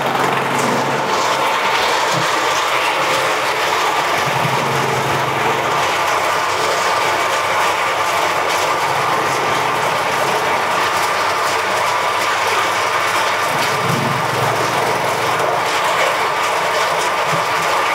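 A coconut husk chipping machine, driven by a 5 hp single-phase electric motor, is running steadily and chopping coconut husks into small chips. It makes a loud, even mechanical rattle of cutting and of chips pouring out of the chute.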